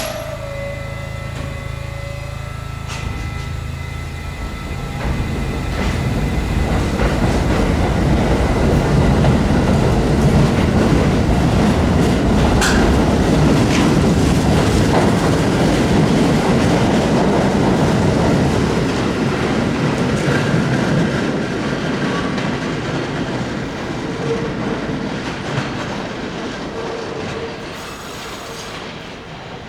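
New York City subway train running past on the track, its rumble and wheel-on-rail noise building over the first several seconds, loudest in the middle, then fading away.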